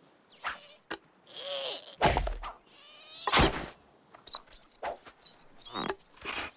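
Cartoon sound effects: short warbling squeaky comic noises, one solid thunk about two seconds in as the toy mallet hits the ground, then a run of quick high chirps and clicks in the last few seconds.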